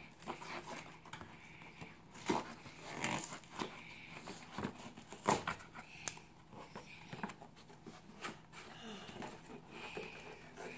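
Quiet, scattered taps and rustles of a cardboard-and-plastic doll box being handled, with a few sharper knocks.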